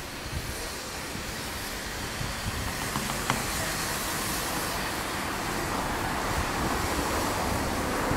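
Beyer Peacock 2-4-0T narrow-gauge steam tank locomotive moving off slowly with its cylinder drain cocks open, a steady hiss of steam that grows louder as it draws nearer.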